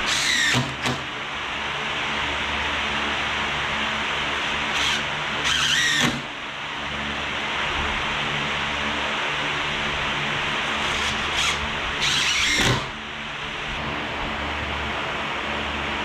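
Cordless drill driving screws into plywood in three short runs, each under a second, about six seconds apart, each with a brief tap of the trigger just before. A steady rushing background noise runs underneath.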